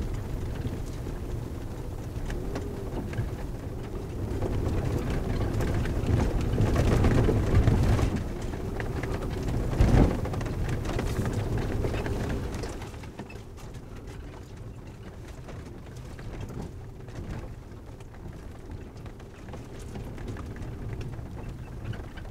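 Road noise inside a Toyota RAV4 driving on a gravel canyon road: a steady low rumble and rushing of the tyres on gravel, with a single knock about ten seconds in. The noise drops to a quieter level a little past halfway.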